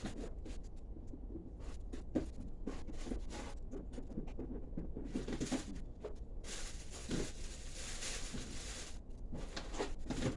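Scattered light knocks, clicks and rustles of someone moving about off-camera, over a steady low hum. A soft hiss comes in about six seconds in and lasts a few seconds.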